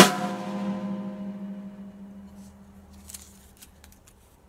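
A drum struck once with a stick, with no muffling on its head. It rings on at one clear pitch with higher overtones and fades out over about three seconds: the undamped sustain that the tape muffling is meant to cut.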